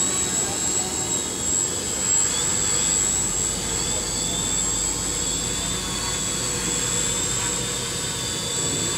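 XAircraft X650 V4 quadcopter hovering, its four electric motors and propellers giving a steady whirring drone.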